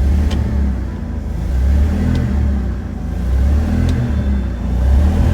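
Ford 4.9L (300 cubic inch) inline-six engine running and being revved, its low drone rising and falling about every two seconds. It is running on fresh oil with Lucas oil stabilizer added, to raise the low oil pressure of an engine that sat for years.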